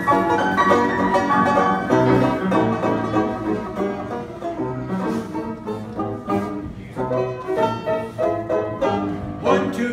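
Upright piano and banjo playing a tune together.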